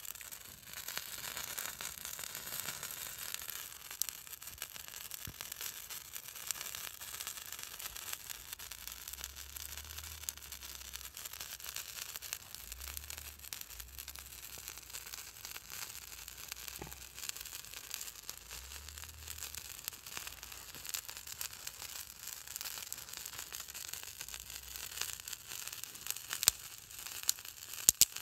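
Steady hiss and crackle of a small twig fire catching from a fire-starter nugget on ice. A few sharp snaps near the end as dry twigs are broken.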